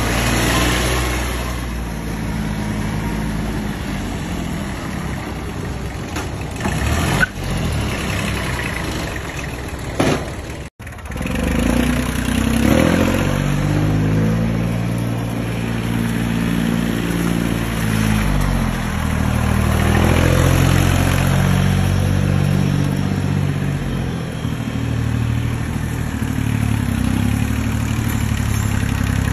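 Small Kubota diesel tractor engines running as the tractors are driven, the engine note rising and falling at times. The sound cuts out for an instant about a third of the way in.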